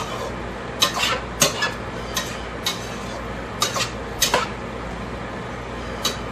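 A cooking utensil clinking and scraping against a pan as the contents are stirred, in about eight irregular sharp knocks.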